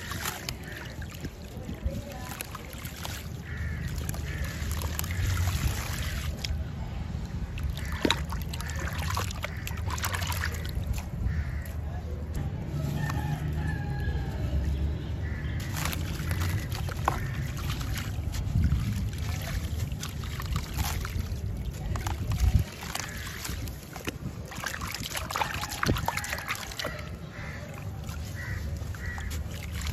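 Hands crumbling a large gritty sand-cement chunk over a tub of water, with loose grit trickling into the water and the wet chunk dunked and sloshed. There are scattered sharp crunches, the loudest about a third of the way in and again about three quarters through.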